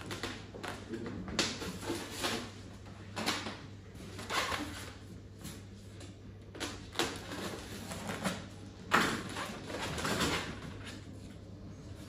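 Thermocol (expanded polystyrene) packing box being handled and opened, its foam lid and sides rubbing and squeaking against each other in short bursts every second or so, the loudest about nine seconds in.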